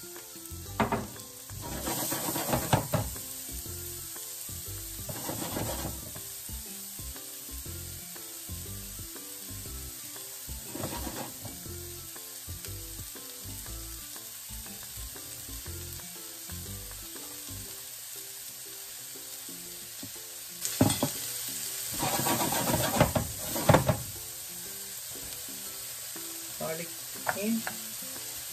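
Chopped onions sizzling as they fry in a frying pan, with a steady hiss and several louder bursts as they are stirred around the pan, the loudest a couple of seconds in and again about three-quarters of the way through.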